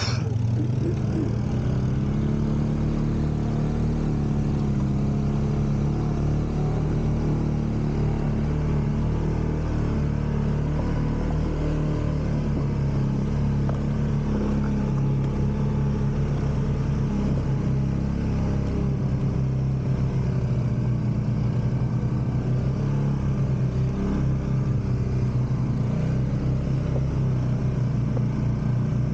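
Off-road utility vehicle's engine running steadily, its pitch wavering a little as the throttle changes.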